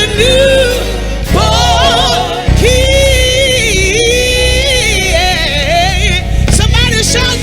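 Music: a song with singing over an instrumental backing, long held notes with vibrato and a steady bass line.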